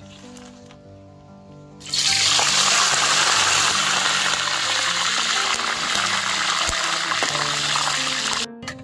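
Fresh leaves frying in hot oil in a wok: a loud, steady sizzle that starts about two seconds in and stops suddenly near the end, over background music.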